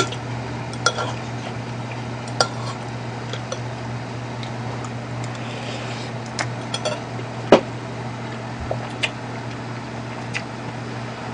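Metal spoon clinking and scraping against a small ceramic bowl: scattered sharp clinks, the loudest about seven and a half seconds in, over a steady low hum.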